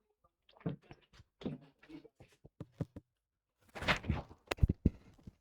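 A run of irregular knocks, clicks and brief rustles, loudest in a noisy burst followed by three or four sharp clicks a little past halfway.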